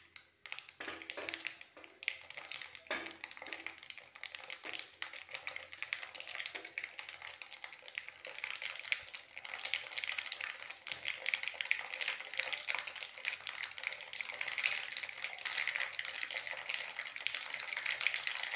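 Mustard seeds spluttering in hot sesame oil in a steel kadai: a dense crackle of small pops over a frying sizzle, growing thicker and louder through the second half. This is the tempering stage where the seeds burst in the hot oil.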